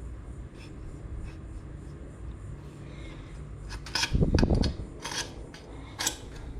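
Handling noises while marking and working on the rack's material: rubbing and scraping with scattered clicks, a louder thump about four seconds in, and two sharp clicks after it, over a steady low hum.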